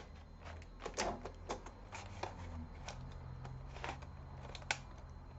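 A laptop's optical (CD) drive being worked out of its bay by hand: scattered small plastic clicks and knocks, the sharpest about a second in and again near the end.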